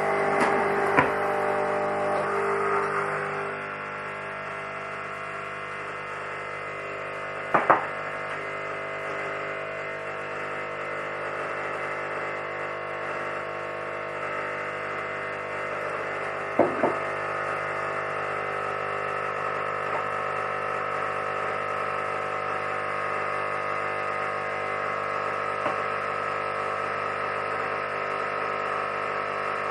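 Espresso machine's pump humming steadily with a mains-pitched buzz, as when a shot is being pulled. It is louder for the first few seconds and then settles. Two sharp clicks come partway through, and a fainter one near the end.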